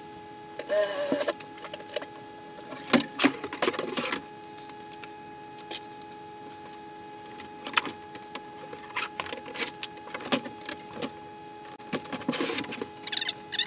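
Scattered knocks, clunks and scraping from the black plastic sled of an Otter X-Over ice-fishing shanty and its fittings being handled and shifted, over a steady hum. A short scrape comes about a second in, and clusters of knocks come near the middle and near the end.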